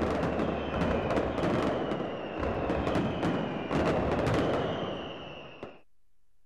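Fireworks going off in quick succession: many sharp bangs and crackles over a dense rumble, with a high whistle sliding slowly down. It all cuts off suddenly near the end.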